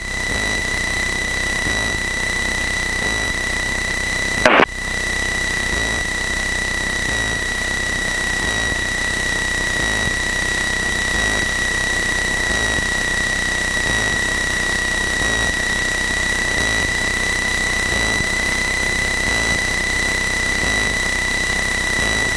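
Cessna 162 Skycatcher's engine and propeller running steadily in flight, heard as an even drone on the headset intercom audio. A constant high-pitched whine sits over it at one pitch, and there is one short click about four and a half seconds in.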